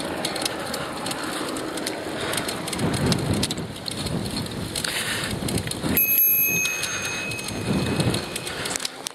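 Steady crackling and rustling noise on a body-worn earpiece microphone while cycling, from wind and rubbing on the mic.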